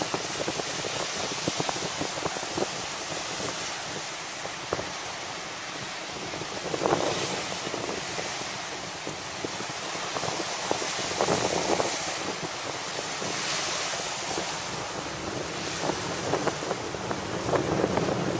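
Wind buffeting the microphone in gusts, over a steady hiss of surf breaking offshore.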